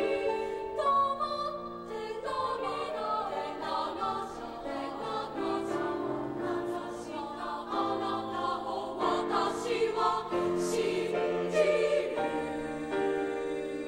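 Junior high school choir singing, several voice parts held in harmony and moving from note to note.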